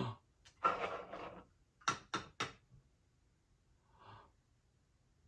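Toy barns being stacked on top of one another: light handling scrapes, then three quick knocks about two seconds in as they are set down, and a faint tap a little before the end.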